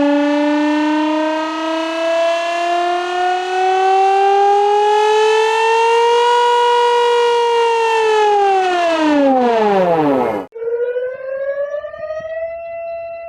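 Civil defense siren played backwards, loud. Its wail rises slowly for about six seconds, then falls steeply and cuts off abruptly about ten seconds in. A second siren tone starts at once, rises and holds steady.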